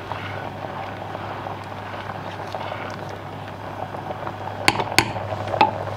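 Rice simmering in a stainless-steel pot of water while a wooden spoon stirs it, over a steady low hum. Near the end come three sharp knocks of the wooden spoon against the pot.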